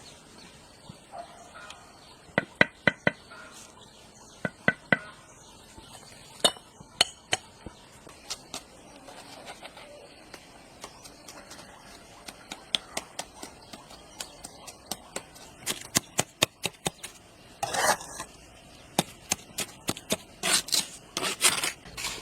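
Sharp knocks and clinks of hard objects being struck or set down, at irregular intervals, some in quick pairs and coming more often towards the end.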